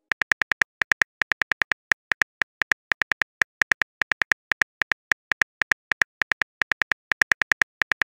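Smartphone on-screen keyboard clicks as a text message is typed: a fast, uneven run of short taps, about five a second.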